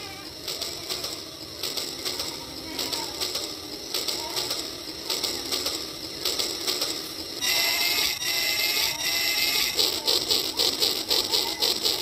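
Battery-powered toy train running on plastic track: its small geared motor whirring and the drive and wheels clicking rapidly. About seven and a half seconds in the sound changes abruptly to a louder, higher-pitched mechanical whirr of a second toy train, with a few falling electronic tones, then an even, fast clicking rhythm.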